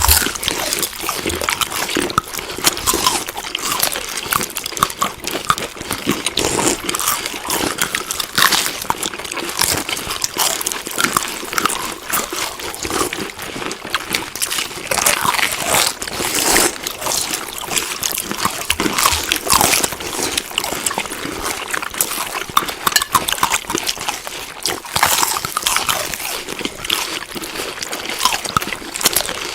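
Chewing food: a continuous run of irregular small clicks and crackles of the mouth at work, without pauses.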